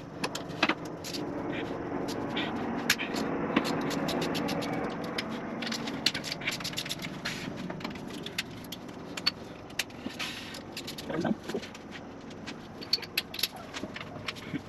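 Hand tools working on metal engine parts, a run of sharp metallic clicks and scrapes. A steady low hum runs under the first few seconds and fades.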